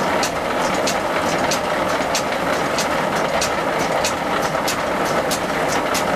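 Horizontal water mill running, with a steady rush of water and turning millstone under a regular sharp ticking about every two-thirds of a second.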